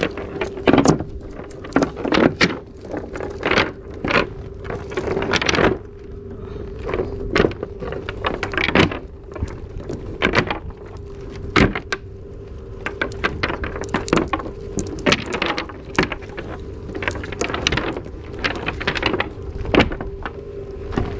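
Cast net full of small fish being handled on wooden deck planks: irregular rustles and sharp knocks and taps, with a steady low hum underneath.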